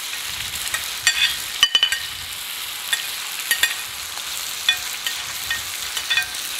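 Chopped raw tomato, onion and green pepper sizzling in hot olive oil in an earthenware cazuela, over a steady frying hiss. Several short clinks of a metal spoon scraping the vegetables off a china plate into the pan.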